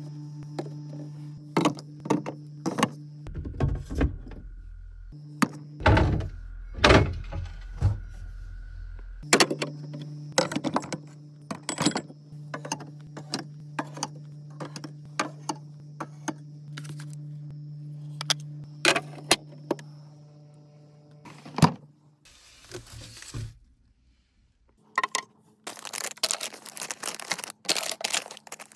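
Items being set down and arranged in a fridge: a long run of thunks, clinks and knocks over a steady low hum. Near the end, a dense rustle like packaging being handled.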